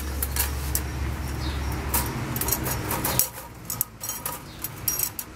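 Wire live-trap cages rattling and clinking as they are handled and their doors worked, a run of short, sharp metallic clicks.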